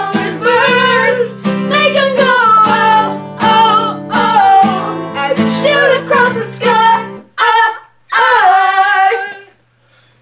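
Voices singing along to a guitar. The guitar drops out about seven seconds in, and a last sung phrase ends shortly before the close.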